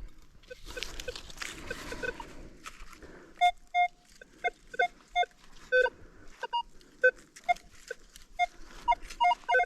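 Rustling and scraping as ground debris is cleared, then a metal detector giving many short target beeps, mostly at one pitch with a few higher and lower ones, several a second.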